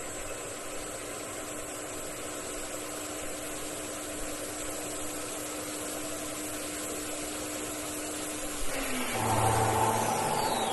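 A steady machine-like hum with one constant tone. Near the end the tone slides down in pitch and a louder, different sound takes over.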